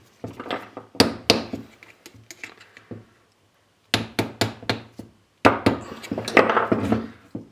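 Metal tools knocking and clinking against a Honda Civic rear brake caliper while its piston is pushed back into the bore. There are single sharp knocks, a run of quicker knocks, and then a longer stretch of scraping and clattering near the end.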